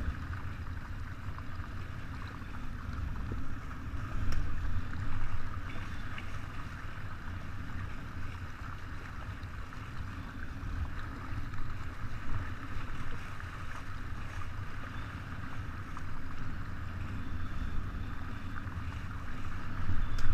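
Steady low rush of wind on the microphone and water along the hull of a 49er skiff sailing at about eight to nine knots, swelling briefly about four seconds in.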